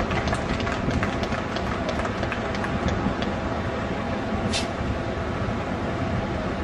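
Steady, dense vehicle rumble with scattered faint clicks in the first few seconds and a short high hiss about four and a half seconds in.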